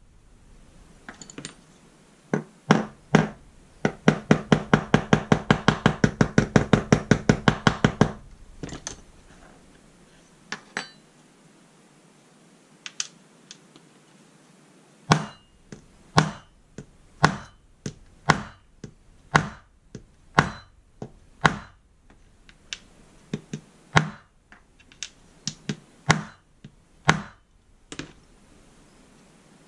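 Metal-on-metal tapping on the steel parts of an old spring balance: a rapid, even run of about seven taps a second for some four seconds, then single knocks from a small hammer about once a second.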